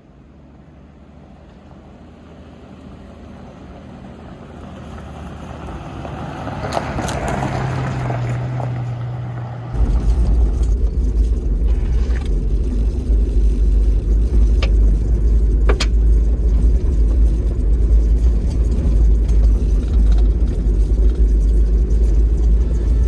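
Toyota Land Cruiser 70 driving: engine and tyre noise grow steadily louder over the first several seconds as it approaches. About ten seconds in, the sound switches suddenly to a loud, steady low rumble of driving.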